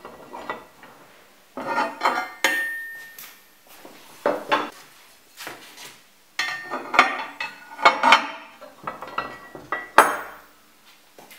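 Metal barbecue cook plate and its hinged metal holder clanking, scraping and clinking as the holder's arms are swung and fitted to the plate, in several bursts; one clank rings briefly, and the loudest comes near the end.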